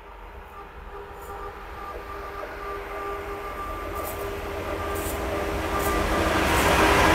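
Electric locomotive hauling a freight train on approach, the rail noise growing steadily louder, with a few held tones over the rising rumble.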